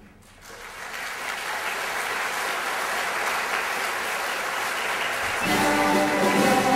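Audience applauding steadily after a song ends, with the orchestra coming back in about five seconds in.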